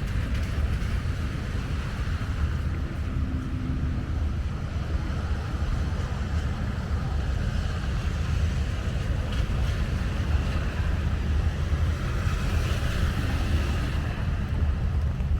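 Wind buffeting the microphone as a steady low rumble, under the even hiss of heavy rain.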